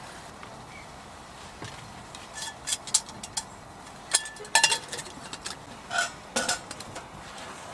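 Metal cookware and utensils clinking and knocking as they are handled: a dozen or so irregular sharp clinks, some with a brief metallic ring, the loudest cluster about four and a half seconds in.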